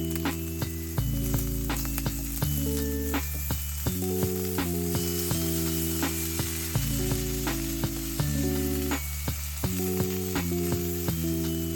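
Food sizzling steadily as it fries, under background music of sustained chords and bass notes with a light, even beat.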